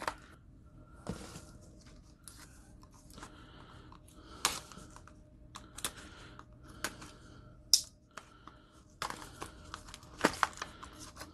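Handling and opening a small cardboard retail box holding a folding knife: quiet, irregular crinkling and rustling with light clicks and a few sharper taps.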